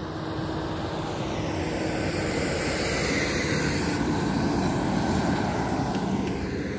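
A truck drives past, its engine and tyre noise swelling to a peak around the middle and easing off toward the end.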